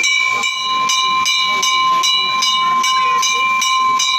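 Temple bells ringing during worship: a steady metallic ring with a regular beat of strokes, about three a second.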